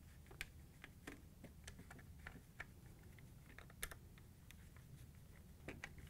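Faint, irregular light clicks of a small Phillips screwdriver turning screws out of a plastic refrigerator dispenser control panel, one click a little sharper near the middle.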